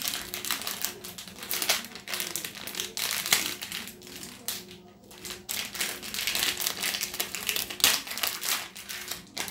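White plastic packaging pouch crinkling and crackling in irregular rustles as it is handled and crumpled in the hands.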